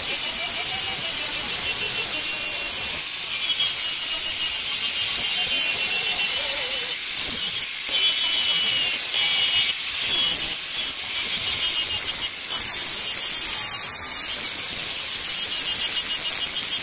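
Handheld angle grinder with a polishing pad grinding and polishing the rounded edge of a granite slab: a steady high whine over a rasping grind, dipping briefly a few times.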